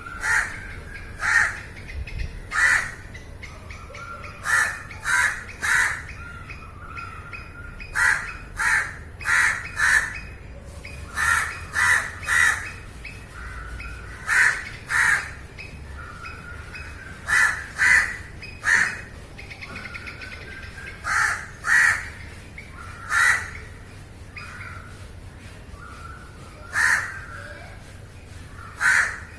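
Crows cawing: loud, short caws mostly in pairs or threes, with fainter caws from other crows in the gaps between.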